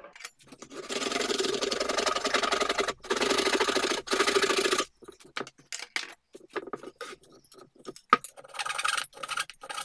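Hand saw cutting through hardwood in rapid strokes for about four seconds, with two brief pauses. This is the flush cut across an oak plug glued into a wrongly cut mortise. After that come scattered lighter scrapes and knocks as the cut is cleaned up with a chisel.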